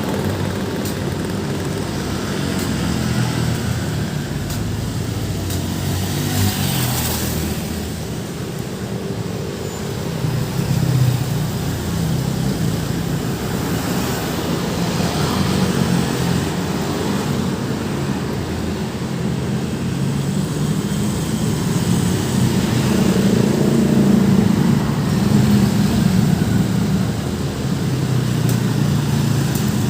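Busy road traffic: vehicle engines running and passing close by, swelling and fading as they go, with a short rush of noise about seven seconds in.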